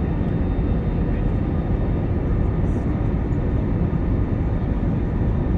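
Steady drone inside an airliner cabin in flight, engine and airflow noise heavy in the low end with a faint high whine, as the plane descends on approach.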